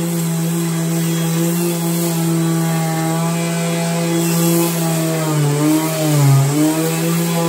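Electric finishing sander with a dust-extraction hose running steadily against a stained maple cabinet door, sanding the old finish down to bare wood before painting. Its hum sags in pitch and gets louder for a moment about six seconds in, then picks back up.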